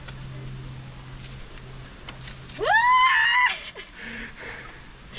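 A person's loud, high cry: the voice sweeps up about two and a half seconds in, holds for about a second, then falls away.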